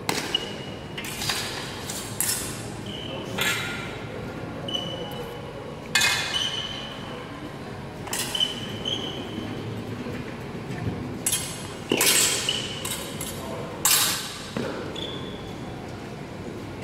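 Metal practice swords clashing against each other and against bucklers in sword-and-buckler sparring: a dozen or so sharp clanks in quick clusters, several leaving a brief metallic ring, echoing in a large hall.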